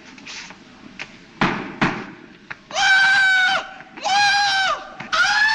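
A man's high-pitched Tarzan-style yell: three long held cries, the first two dropping in pitch at their ends. Two sharp smacks come shortly before it.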